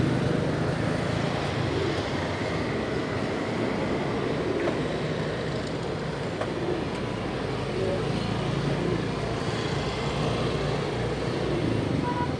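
Steady background traffic noise, a low, even rumble of vehicles.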